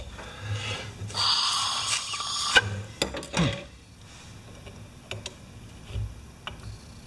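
Air blown through the brass check valve of a pressure washer spray gun, a rushing hiss of about a second and a half that shows the valve is letting air through. It is followed by a few light metallic clicks as needle-nose pliers work on the valve.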